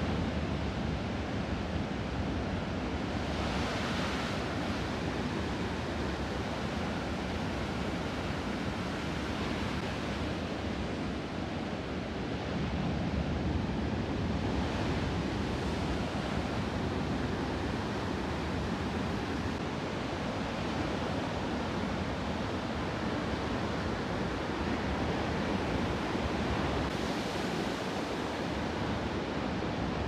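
Ocean surf: a steady rush of waves breaking and washing ashore, swelling a few times as bigger waves break.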